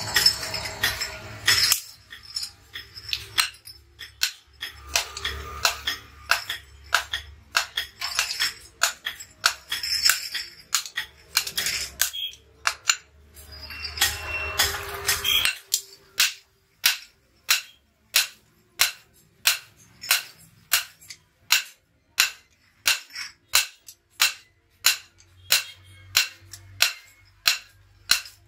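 Hand hammer striking a red-hot billhook blade on a steel anvil block, each blow a sharp metallic bang. The blows are irregular over a low hum at first; the hum stops about halfway in and the hammering settles into an even rhythm of just under two blows a second.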